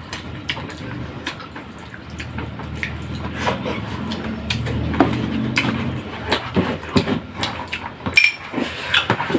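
Eating sounds at a meal of soup and rice: spoons and forks clicking against bowls and plates, with wet slurping of broth. A low hum swells for a few seconds in the middle.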